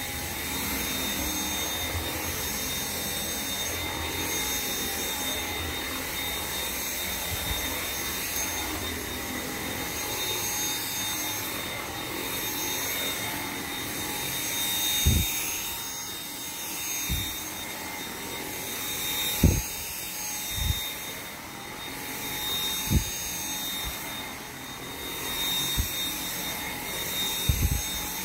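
Dyson V7 Motorhead cordless stick vacuum running steadily, its motor giving a high whine over a steady rush of air as the motorized brush head works the carpet. From about halfway, a few short low thumps sound every second or two.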